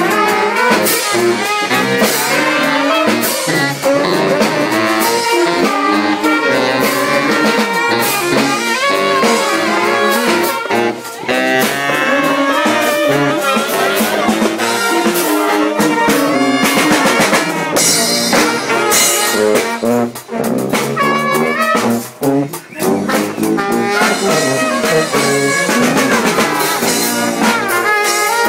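A street brass band playing loudly, with horns and drums together, live inside a moving subway car.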